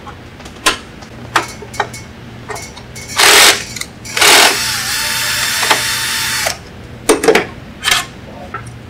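Cordless drill/driver backing out screws from a DeWalt DW788 scroll saw's housing. It gives a short burst about three seconds in, then a second run about a second later that holds a steady whir for about two seconds before cutting off. Sharp clicks and knocks come before and after.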